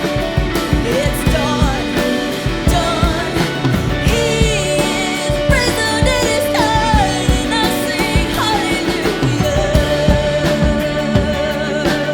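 Worship band playing an upbeat rock-style song with a drum kit, and a voice singing gliding lines over it.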